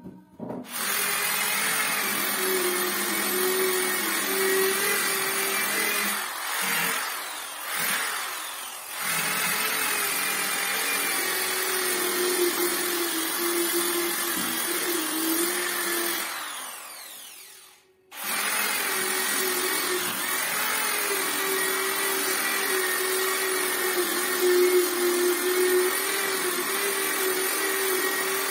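Electric sander running steadily on a wooden door, its pitch wavering a little as it is pressed and moved. About two-thirds through it winds down with falling pitch and stops, then starts up again at once.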